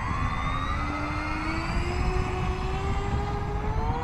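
The twin electric motors and propellers of a Hobby King DC-3 RC model plane throttling up on the takeoff roll: a whine of several tones that rises steadily in pitch.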